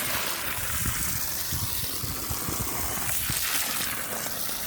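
Water spraying steadily from a garden hose onto soil, washing away the dirt to loosen sweet potato roots for harvest.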